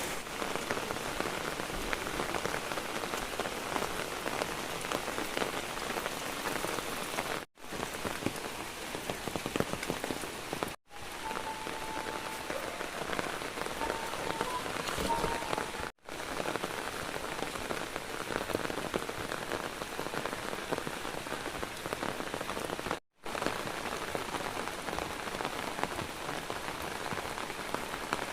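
Steady rain falling in a dense patter of drops, broken by four brief gaps where the sound cuts out.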